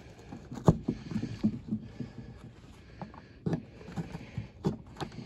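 Handling noise of bare wire jumpers being pulled, bent and repositioned in holes in a cardboard box: rustling and scraping on the cardboard with a few sharp clicks, the loudest about two-thirds of a second in.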